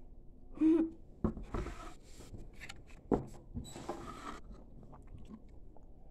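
A person drinking from a plastic drink bottle: a few sharp clicks and knocks of the bottle being handled, and two hissy spells of sipping and swallowing, with a short hum of voice under a second in.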